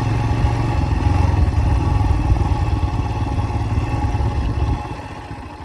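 Motorcycle engine running steadily, its engine sound dropping to a lower level near the end.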